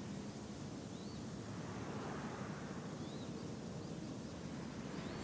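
Outdoor ambience: a steady wash of background noise with a few faint, short bird chirps scattered through it.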